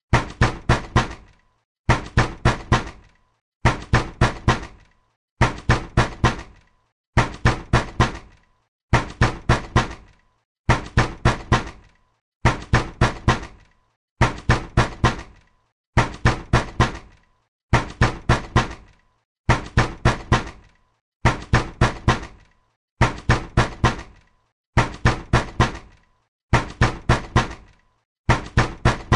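Angry, insistent knocking on a door: quick runs of several hard knocks, repeating about every two seconds without a break.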